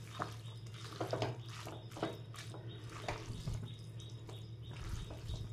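Sauced noodles being tossed in an aluminium wok with two silicone spatulas: irregular soft taps and scrapes with wet, squishy sounds of the noodles, over a steady low hum.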